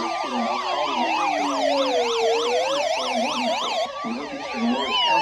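Electronic sirens sounding together: a slow wail rising and falling about every four seconds over a fast yelp of about four sweeps a second. The yelp drops out about four seconds in.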